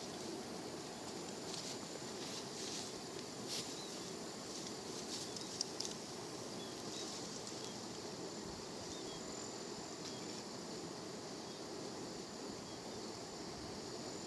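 Steady high-pitched insect buzzing over a low even rushing noise, with a few sharp clicks in the first half and faint short chirps.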